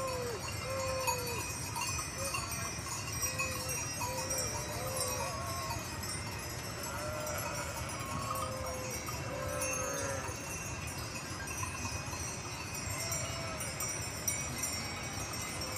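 A flock of sheep bleating, many short overlapping calls, thickest in the first two-thirds and again near the end, with bells ringing among the flock.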